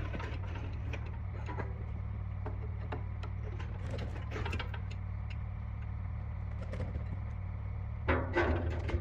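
Engine hoist lowering a Duramax diesel engine block on its chain into a steel drum: scattered light clicks and rattles of chain and metal, with a cluster of louder clunks about eight seconds in, over a steady low hum.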